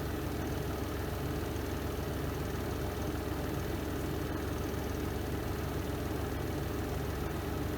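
Spin drum of a Renova semi-automatic twin-tub washing machine spinning the laundry: a steady low motor hum at an unchanging level.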